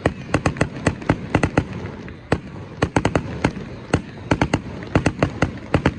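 Fireworks going off: a rapid, irregular string of sharp cracks and pops, about four a second, over a steady background noise.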